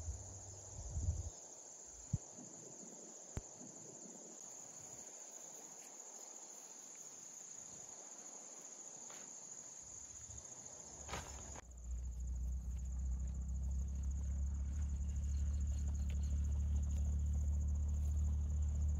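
Crickets chirring in a steady, continuous high trill, with two short clicks in the first few seconds. About twelve seconds in, a louder low rumble takes over and the insect trill fades back.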